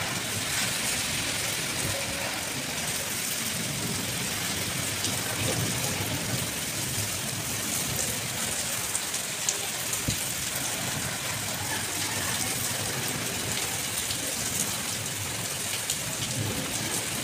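Heavy rain falling steadily into a flooded yard: a constant hiss of rain on standing water, with a few sharper drop ticks.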